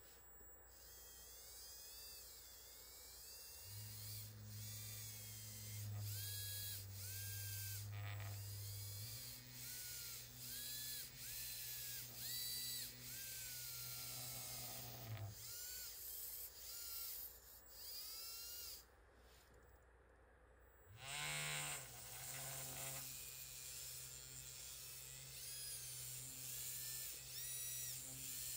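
A small motor running with a steady hum that shifts pitch a few times, with short rising-and-falling whines over it.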